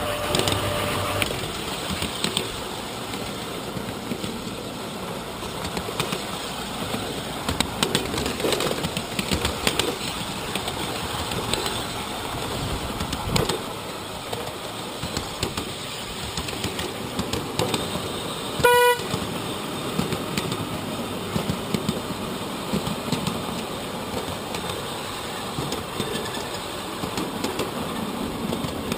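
A 7¼-inch gauge miniature train running along the track, its wheels rumbling over the rails with scattered clicks. One short horn toot sounds a little under two-thirds of the way through.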